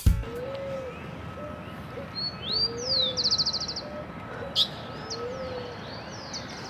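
Birdsong: small birds chirping with two quick high trills, and a dove cooing low three times. A single sharp click sounds about halfway through.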